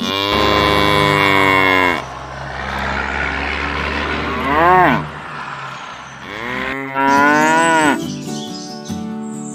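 Cows mooing three times: a long moo at the start, a short rising moo about four and a half seconds in, and another long moo about seven seconds in, with a steady hiss between the first two.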